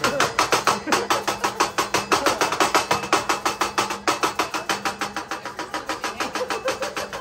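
A teppanyaki chef's salt and pepper shakers rattled and tapped in a fast, even rhythm of about six or seven clacks a second as he seasons the food on the griddle.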